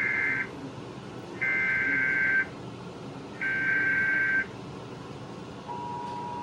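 Emergency Alert System SAME header data bursts, which encode a severe thunderstorm warning: a harsh buzzing data squawk. The end of one burst is heard, then two more, each about a second long with a second's gap. About five and a half seconds in, the steady two-tone EAS attention signal begins.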